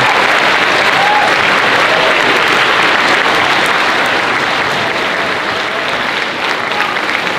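A large audience of students applauding steadily, a dense continuous clapping.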